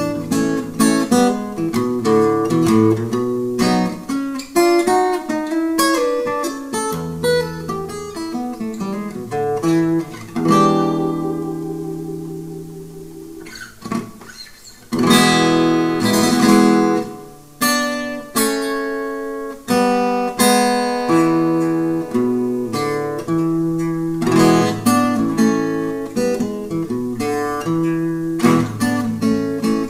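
Acoustic guitar playing a swing blues improvisation of quick plucked melody lines built from broken chords. About ten seconds in, a chord is left ringing and fading for roughly three seconds before the picking resumes.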